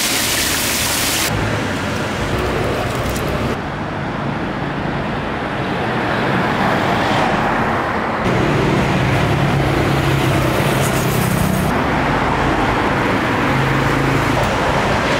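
Street traffic noise: motor vehicles and motorbikes running and passing, with a steady low engine hum for a few seconds in the middle. It opens with about a second of bright, hissing sizzle from squid deep-frying in oil.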